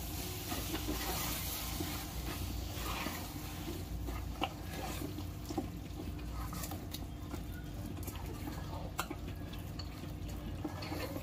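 A spoon stirring raw goat lung pieces into oily masala in a pressure cooker: wet, squelchy mixing with a few sharp clicks of the spoon against the pot, over a low steady hum.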